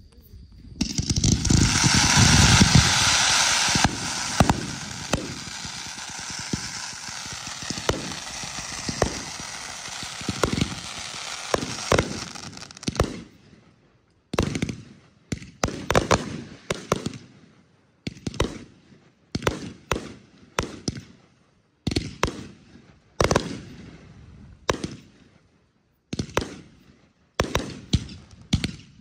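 Fireworks. For about the first twelve seconds there is a continuous hissing rush with scattered pops. It then gives way to a string of separate sharp bangs from aerial shells bursting, roughly one every second, each with a short decaying tail.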